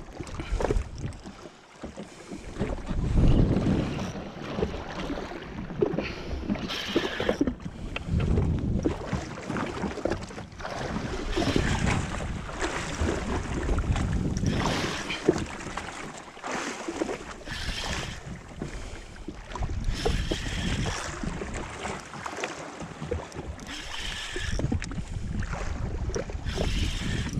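Wind buffeting the microphone and waves slapping and splashing against the hull of a drifting jetski, coming in uneven surges every few seconds.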